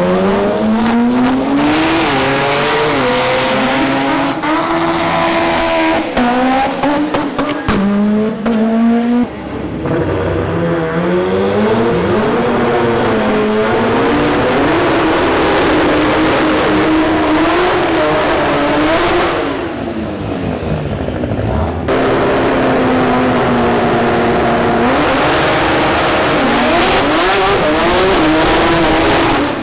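Drag-racing import cars on slicks: high-revving race engines climbing and dropping in pitch through launches and gear changes, with a burnout's tyre squeal, the sound jumping abruptly from one car's run to another's a few times.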